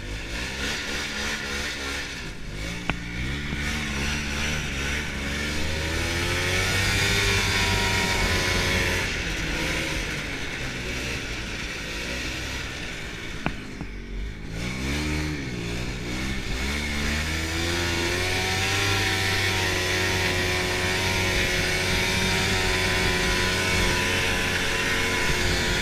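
Small two-stroke snowmobile engine heard from the rider's seat, accelerating from low speed, easing off and picking up again twice, then running steadily at speed.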